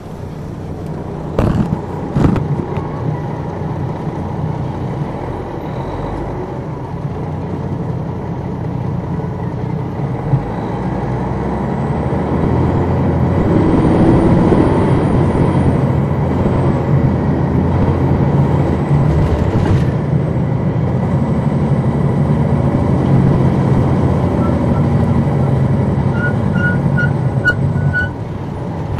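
Detroit Diesel Series 60 inline-six diesel of an MCI D4000 coach heard from on board, running under way and growing louder as the bus pulls harder, then holding steady. Two sharp clicks come near the start, and a series of short beeps near the end.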